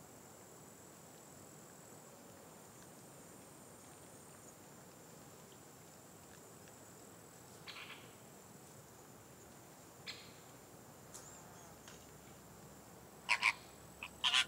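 Greater flamingos calling: a few short, spaced-out calls, then a louder run of four close together near the end, over a faint steady high-pitched whine.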